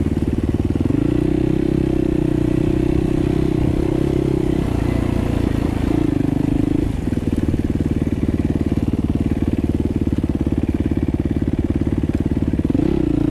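Dirt bike engine running under way as the bike rides a dirt trail, with a fast, even pulse. It gets louder for a few seconds starting about a second in, and again briefly around six seconds, easing off just before seven seconds.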